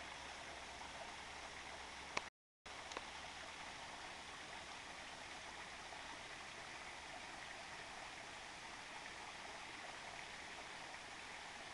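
Steady rushing of a flowing stream, with a click and a brief complete cut-out of the sound about two seconds in.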